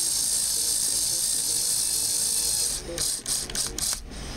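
Small electric screwdriver running steadily as it drives a screw home. About three seconds in it stops, then gives a few short bursts as the screw seats.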